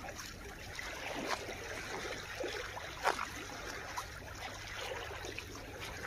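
Shallow sea water lapping and trickling among shoreline rocks, with a few short splashes about one, three and four seconds in.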